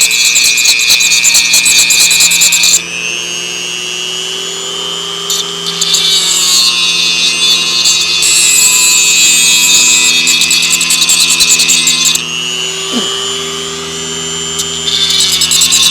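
Angle grinder with a reinforced abrasive disc grinding rust off steel in three stretches. Between them the disc is lifted off the work and the motor whines along on its own, sagging briefly in pitch once before it bites in again.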